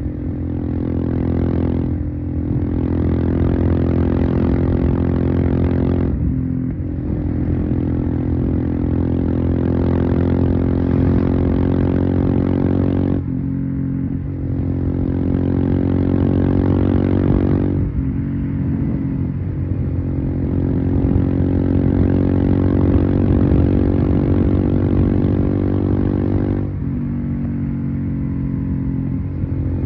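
Royal Enfield Himalayan's single-cylinder engine running through a Devil Pro Evolution aftermarket exhaust while riding. The throttle briefly closes and reopens about 2, 6, 13, 18 and 27 seconds in, the exhaust note dropping each time and then building again.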